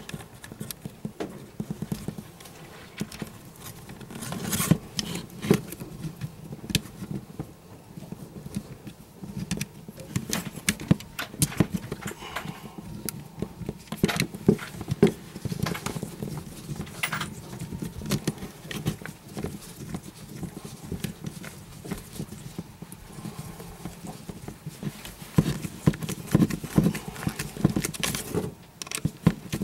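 Irregular small clicks and knocks from hands working at the terminals of a plastic ELCI breaker: a screwdriver turning terminal screws, with ring terminals and wires being handled against the housing.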